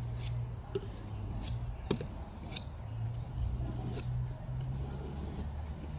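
Fillet knife being sharpened on a sharpening stone: the blade scrapes along the stone in repeated strokes, roughly one or two a second, over a low steady hum.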